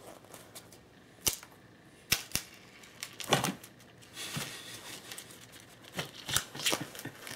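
A cat playing inside a fabric cat tunnel: a string of irregular sharp clicks and crinkly rustles as the tunnel's fabric and the floor are scrabbled and brushed.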